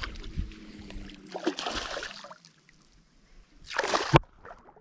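A small barramundi splashing at the water's surface beside the boat as it is played in on a lure: two short bursts of splashing, the second louder and ending abruptly.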